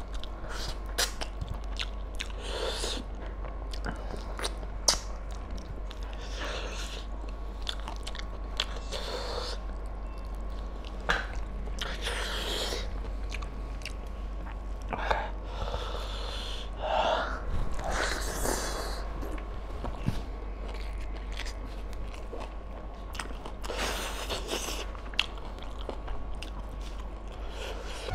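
Chewing and wet mouth sounds of a man eating mutton curry and rice with his hand, with irregular smacks and clicks throughout. A steady low hum runs underneath.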